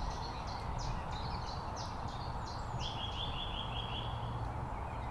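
Small songbirds calling outdoors: a run of short high chirps, then a brief rapid trill about three seconds in, over a steady low background rumble.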